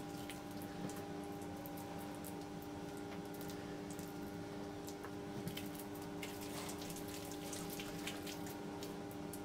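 Faint soft squishes and light clicks of oiled hands shaping and pinching soft dough into round balls, over a steady background hum.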